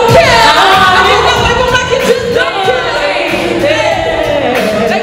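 Female vocal trio singing into handheld microphones over backing music, voices bending in pitch phrase by phrase.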